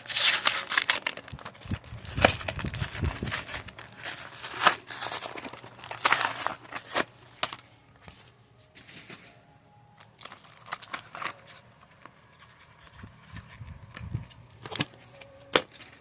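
Foil booster-pack wrapper being torn open and crinkled, loud and rasping for about the first seven seconds. Then quieter, scattered rustles and clicks follow as the cards are handled.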